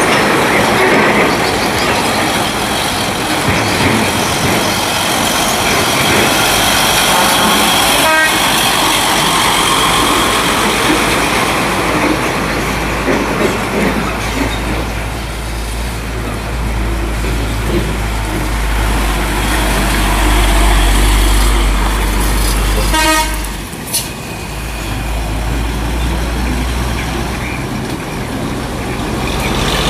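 Loaded log truck's diesel engine running as it drives past on a dirt road, with a deep rumble swelling in the second half. Two short horn toots, about eight seconds in and again near 23 seconds.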